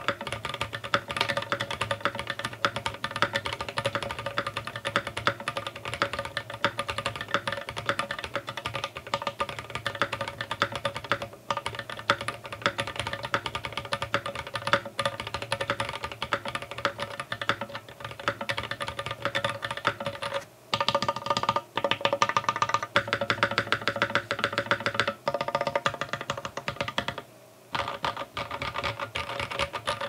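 Fast, continuous typing on a mechanical keyboard: a G Square Studio Vintage 60s with an FR4 plate, factory-lubed Vertex V1 switches and GMK keycaps, with its solenoid clicker switched off. It pauses briefly a couple of times, with background music underneath.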